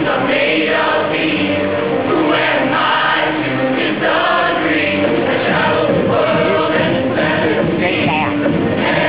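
High school show choir singing, many voices together at once.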